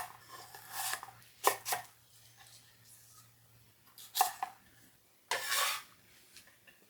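Knife chopping on a cutting board: a handful of separate sharp strokes at irregular intervals, then a brief scraping sound about five seconds in.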